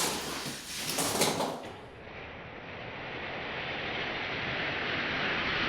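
Die-cast Hot Wheels cars rolling fast down a plastic drag track, a rushing rolling noise with a brief clatter about a second in. The rolling noise swells again toward the end.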